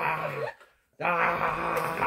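A person's drawn-out, wailing vocal sound held at a steady pitch, made as part of playful puppet-fighting. It cuts out completely for about half a second partway through, then resumes at the same pitch.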